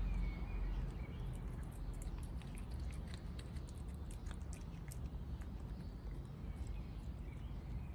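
Cat chewing and licking food off a hard tile floor: many small, quick wet clicks and smacks, over a low steady rumble.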